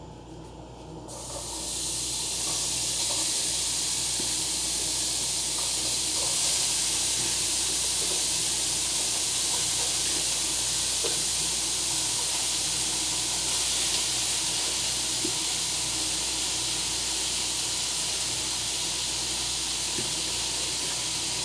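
Seasoned ground beef sizzling in a hot pot. The sizzle starts suddenly about a second in as the meat goes in, then holds steady with scattered small pops.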